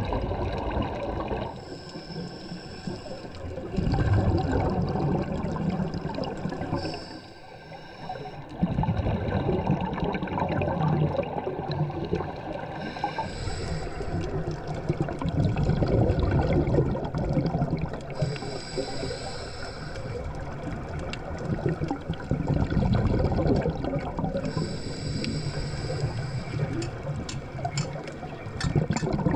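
Underwater sound of scuba divers' exhaled air bubbles rising and bubbling, in swells that come and go every several seconds with each breath through the regulator.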